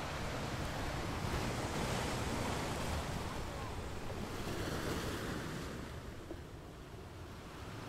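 Steady rushing noise like ocean surf, with no clear tone or beat, fading away over the last couple of seconds.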